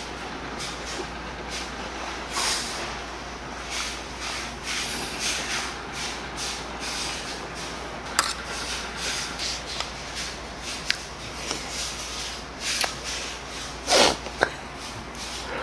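A spoon scraping and clicking against a bowl as bibimbap rice is mixed, with a louder clatter near the end.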